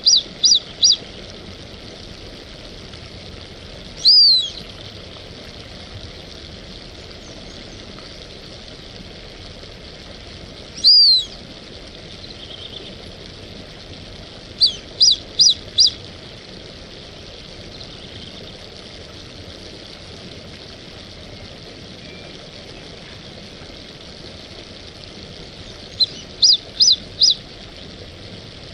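Brazilian teal (Amazonetta brasiliensis) whistling: quick runs of three or four short high whistles at the start, about 15 seconds in and near the end, and two longer downward-slurred whistles about 4 and 11 seconds in, over a steady background hiss.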